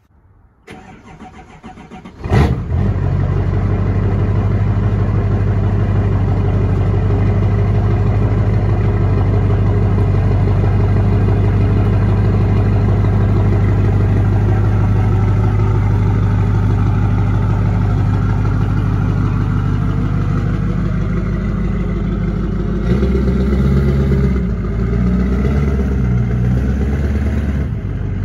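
LB7 Duramax 6.6-litre V8 turbo-diesel starting up about two seconds in, catching at once and then running steadily at idle. Near the end the low rumble turns uneven for a few seconds.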